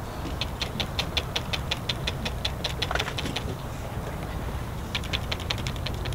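A rapid, even run of short high chirps, about six a second, that pauses for about a second midway, over a low outdoor rumble.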